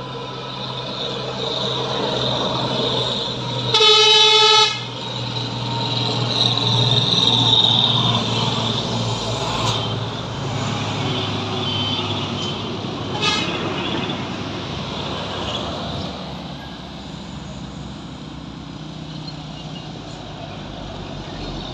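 Diesel engines of heavy trucks running as they pass close by, with one loud horn blast lasting under a second about four seconds in and a shorter, fainter horn toot about thirteen seconds in.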